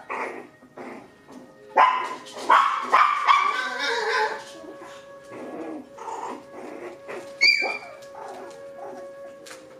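Six-week-old poodle puppies yipping and barking in play, with a quick run of loud yaps about two to four seconds in and one short high squeal near the end.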